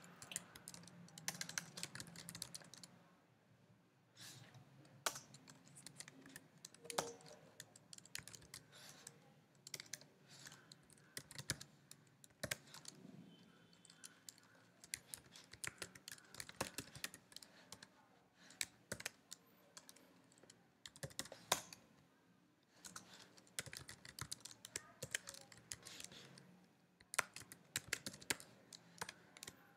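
Typing on a computer keyboard: quick, irregular key clicks in bursts with short pauses.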